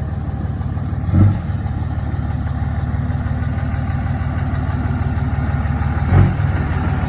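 Vehicle engine running steadily while driving, with two brief louder bumps, one about a second in and one near the end.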